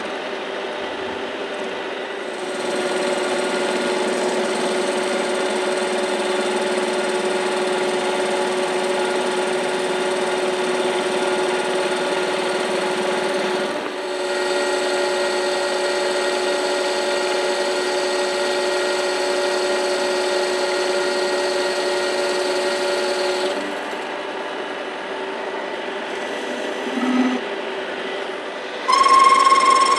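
Metal lathe turning a metal bushing blank, the spindle and gearing running with a steady whine as the tool takes a cut along the outside. It gets louder a couple of seconds in, eases off near the end, and a different, louder whine comes in just before the end.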